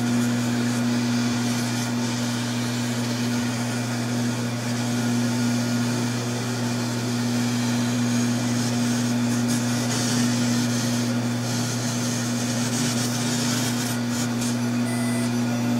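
Taig CNC mill running steadily as its 1/8-inch bit engraves a block of polystyrene foam: an even motor hum with a hiss of the cut over it.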